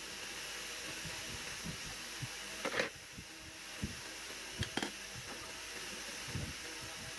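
Hand tools and small metal horn parts knocking and clinking on a metal workbench during a snail horn repair: a short clatter about three seconds in and a couple of sharp clicks about a second and a half later, over a steady background hiss.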